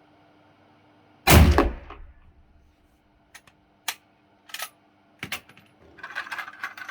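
A single gunshot about a second in, sharp and loud, ringing away over half a second. It is followed by a few short clicks and some clattering near the end.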